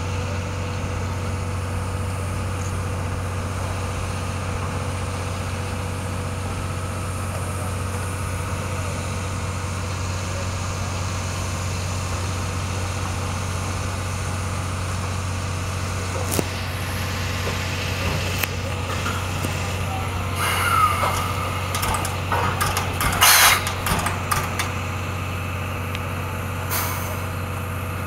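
Railway turntable turning with the steam locomotive C58 363 aboard: a steady low mechanical hum, with scattered clanks in the second half and a short, loud hiss late on.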